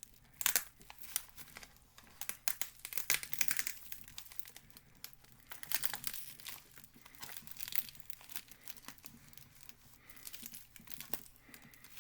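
Packaging being crinkled and torn by hand as a package is wrestled open, in irregular crackling bursts, loudest about half a second in and around three seconds in.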